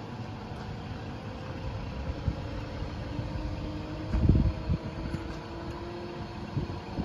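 Scania R480 wood-chip truck running steadily while its hydraulics lift the chip trailer's hinged roof lid open, with a steady whine that rises slightly in pitch. A gust of wind hits the microphone about four seconds in.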